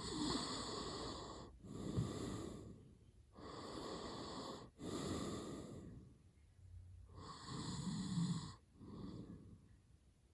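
Man snoring hard in his sleep: six heavy, noisy breaths in three close pairs with short pauses between, the last one fainter.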